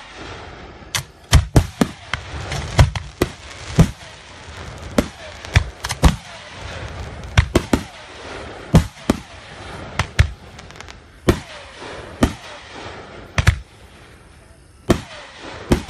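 Aerial firework shells bursting in quick succession: sharp booms about one or two a second, with crackling between them and a short lull near the end.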